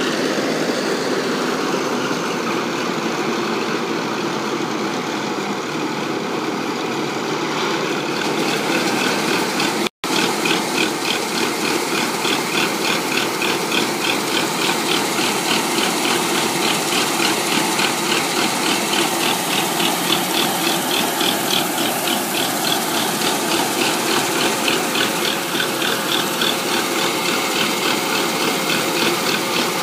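Rice combine harvester running steadily at working speed. After a split-second dropout about a third of the way in, a fast, even rhythmic clatter of a few beats a second sits over the machine's steady noise.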